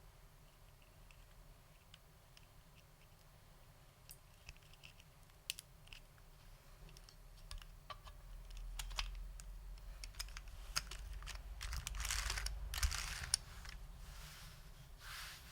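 Typing on a Bakeneko60 keyboard with lubed SKCL Green Alps switches and vintage doubleshot keycaps. Keystroke clicks are sparse and faint at first, pick up a few seconds in, and turn into a fast, dense run of keystrokes about two-thirds of the way through.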